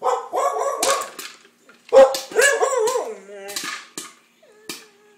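A Wheaten terrier barking and yelping in agitation at a running popcorn popper: two long runs of rapid, pitched yelps, the second sliding down into a falling whine, then a fainter whimper near the end.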